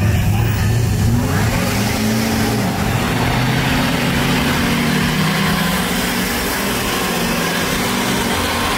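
Lifted diesel mega truck's engine revving hard under load: its pitch swoops up, climbs and holds high, then sags near the end. A broad rushing noise runs over it from about a second and a half in.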